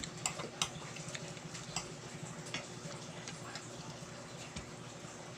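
Mukbang eating sounds: scattered light clicks of cutlery against a dish as noodles are eaten, over a steady low hum.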